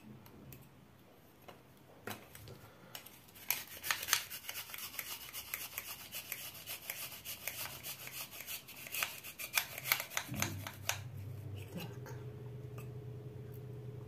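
Handheld garlic press crushing a garlic clove: a long run of rapid crunching, rasping clicks that starts about two seconds in and stops about eleven seconds in. A steady low hum starts shortly before the clicking ends.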